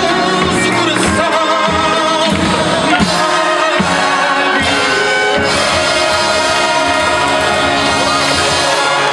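Live big band music: saxophones, trumpets and trombones playing with a rhythm section of guitar, keys and hand drums, with a singer's voice over the band.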